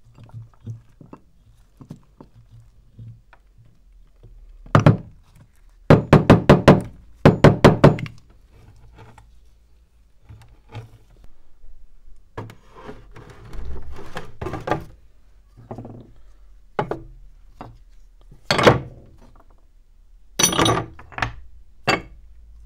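Rusty metal meat grinder parts knocking and clattering against a plastic tub. A fast run of about eight knocks lasts some two seconds, then comes a scraping rattle, then a few single heavy clunks as parts are set down in the tub.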